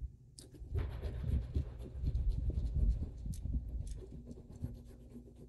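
Scratching and rubbing as a small piece of jewelry is handled and worked by hand close to the microphone, over a low handling rumble; it is strongest in the first half and thins out near the end.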